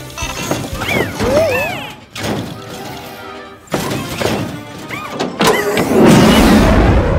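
Cartoon background music with short sliding squeaks and whoops, then a loud crash about six seconds in.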